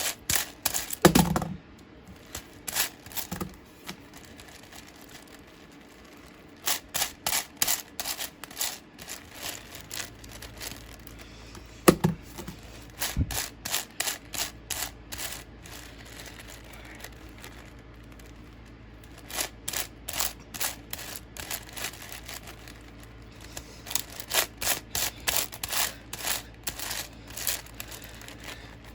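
A big plastic puzzle cube being scrambled by hand: its layers turned in quick runs of clicking and clacking, broken by pauses. There are a couple of louder knocks from handling, the loudest about twelve seconds in.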